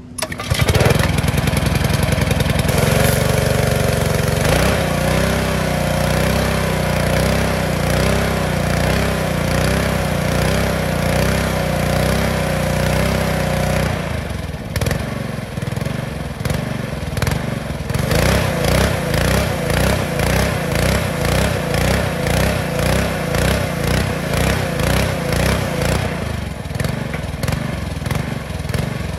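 Ryobi pressure washer's Honda small engine starting and running while surging: its speed keeps rising and falling instead of holding steady. The sound changes about halfway through and turns into a regular pulsing, with the surge still there. The surging persists with a clean carburetor and is a fault that the owner traces to the pump's unloader valve.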